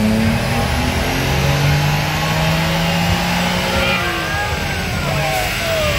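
Car engines running at idle with a steady low note, and an engine's pitch falling near the end as it revs down.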